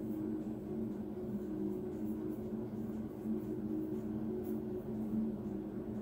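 A steady low hum throughout, with a few faint light taps as fingers press the thin edible prints down onto the fondant circles on the cutting mat.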